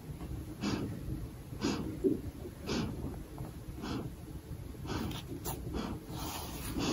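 Sleeping golden retriever snoring, with noisy breaths repeating about once a second.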